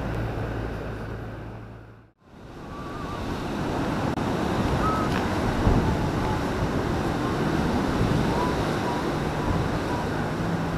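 Gusty wind buffeting the microphone over a rushing surf-like noise, with a steady low hum in the first two seconds. About two seconds in the sound dips to near silence for a moment where the recording cuts.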